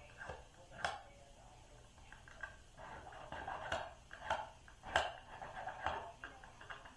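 Small hand file rasping on ash wood in short, irregular strokes, cleaning between the fin points of a carving, with a few sharper scrapes standing out.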